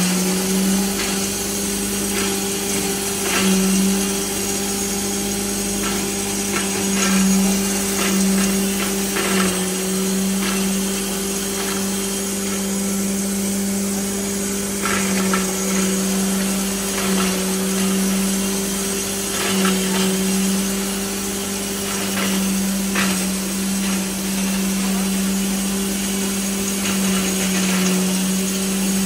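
Belt-driven corn cob grinder running, powered by an electric motor: a steady hum, with irregular knocks and crackles as corn cobs are broken up in it.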